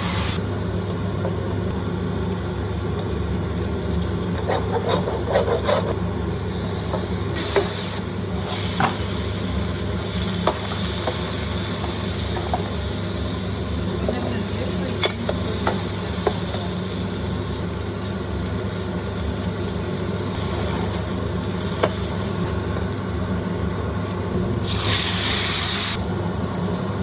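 Paella sizzling in the pan as it is stirred: a steady frying hiss with scattered clicks and scrapes of the utensil against the pan, over a constant low hum. The sizzle flares up briefly twice, once near the start and once near the end.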